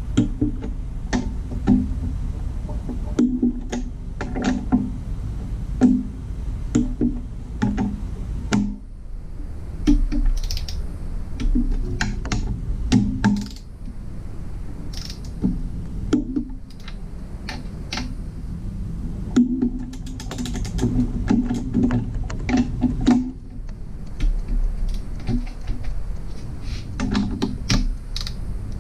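Ratcheting torque wrench clicking in quick runs of back-and-forth strokes as bolts are run down on an engine block, with short pauses between runs.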